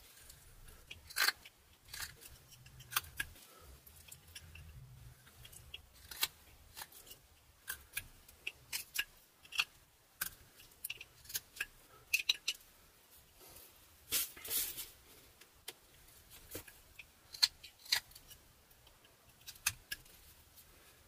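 Carving knife slicing small cuts into butternut wood: crisp short snicks and shaves at irregular intervals, with one longer drawn cut about two-thirds of the way through.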